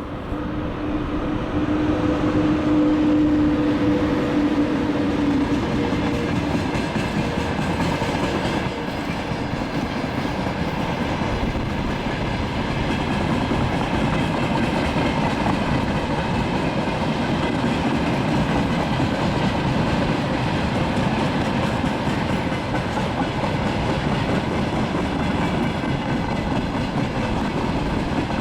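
Freight train hauled by a VL80S AC electric locomotive rolling by: a steady rumble with wheels clacking over rail joints, and a steady tone in the first few seconds that fades out.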